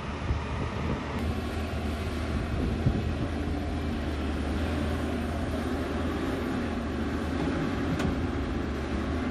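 Diesel engine of a Volvo EC290BLC tracked excavator running steadily under working load as it digs and loads a dump truck, a continuous low drone. Two brief knocks are heard, about three seconds in and near the end.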